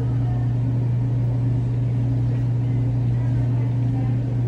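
A steady low hum runs unchanged, with faint voices in the background.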